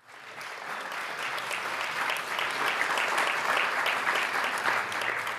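Audience applauding, fading in over about the first second and then holding steady.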